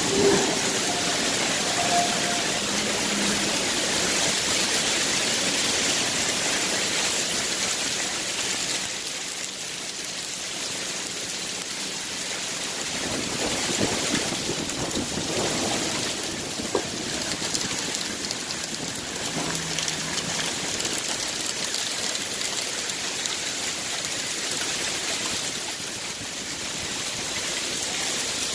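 Hail pelting down on a garage: a dense, steady hiss of countless small impacts. It eases a little about a third of the way in, then picks up again.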